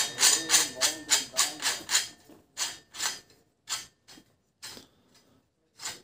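A steel nut and washer turned by hand on the threaded rod of a homemade headset-race press: a run of short scraping strokes. They come quickly at first and then grow slower and further apart after about two seconds.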